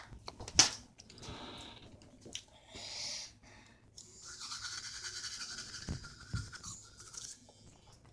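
A toothbrush scrubbing against teeth, in short spells and then one longer steady spell, with one sharp click about half a second in.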